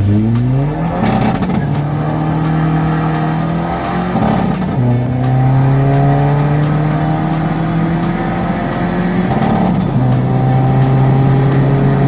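Tuned Seat Ibiza TDI PD diesel engine with a 2569 turbo pulling hard at full throttle, heard from inside the cabin. The revs climb steadily in each gear, with gear changes about a second in, at about four and a half seconds, and near ten seconds.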